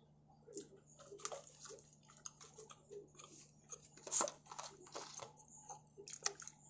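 Close-up chewing and biting of crisp-baked pizza: irregular crunches and mouth sounds, with the loudest crunch about four seconds in.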